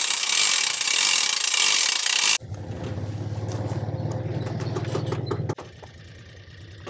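Hay winch being worked, its ratchet pawl clicking. A steady low engine hum comes in abruptly about a third of the way through and lasts about three seconds, then the clicking goes on more quietly.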